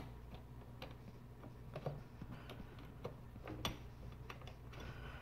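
Faint, irregular metal clicks and ticks of a 10 mm wrench turning the screw of a hose clamp on a rubber air intake tube.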